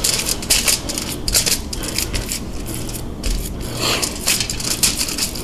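Aluminium foil crinkling and crackling under hands that pat and press raw ground meat into a loaf: a dense, uneven run of short crackles and rustles.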